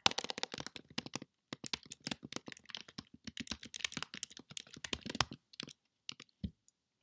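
Fast typing on a computer keyboard: a dense run of key clicks, with a short pause about a second in, thinning out near the end.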